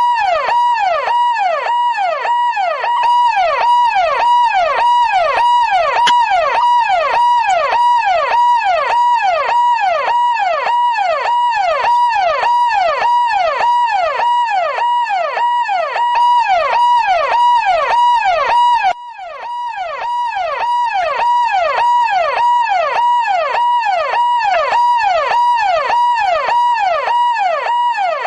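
Police car siren yelping: a quick rise and fall in pitch repeating every half second or so, with a brief drop in loudness about two-thirds of the way through.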